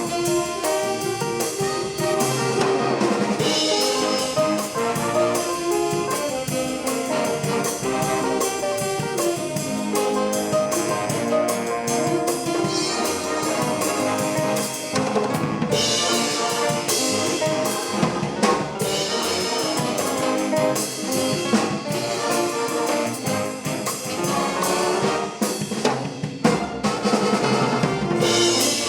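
Swing band playing an instrumental number: a brass section of trumpets and trombones over a drum kit, with no singing.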